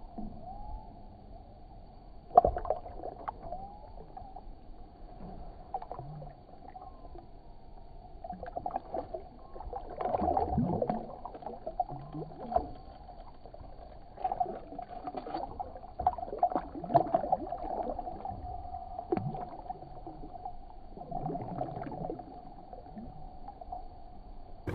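Water splashing and sloshing around a large catfish held by the lower jaw in the water as it is revived and let go, in irregular bursts with one sharp splash about two and a half seconds in. A faint steady hum sits underneath.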